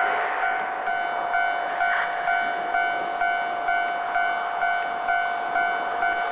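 Railway level-crossing alarm ringing: a clean electronic ding repeating about twice a second, over a hiss of rail noise from a passing train.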